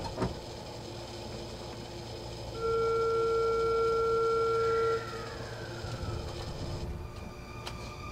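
A departure warning buzzer sounds one steady electronic tone for about two and a half seconds, heard from inside a Sotetsu Series 20000 train standing at a station. Faint train-car background continues around it, with a single click near the end.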